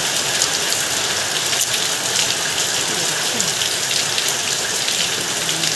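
Heavy rain falling, a steady hiss with scattered sharp drop ticks.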